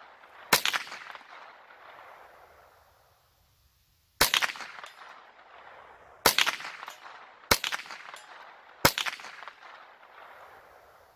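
Ruger 10/22 .22 LR rifle firing five single shots at a slow, uneven pace, each sharp crack followed by a short echoing tail.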